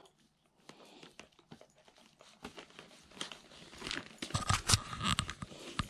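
Husky licking a hot dog: a run of small wet licking and smacking clicks that grows busier and louder from about four seconds in.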